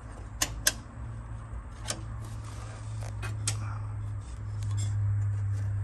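Sharp clicks and taps of plastic and metal as a Valiant Charger's instrument cluster is handled and worked loose from the dash, two clicks close together about half a second in and a few more after. A steady low hum runs underneath and grows louder after about four seconds.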